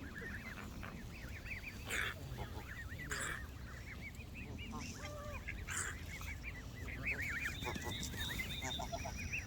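Canada geese calling: many short, quick calls overlapping in a steady chatter, with a few louder rough bursts, over a steady low rumble.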